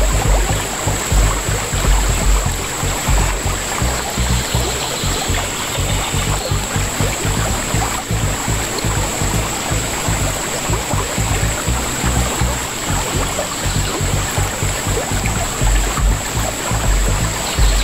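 Shallow river water rippling and rushing past a kayak, with wind buffeting the kayak-mounted camera's microphone as a low, fluttering rumble. A steady high thin tone sits above it.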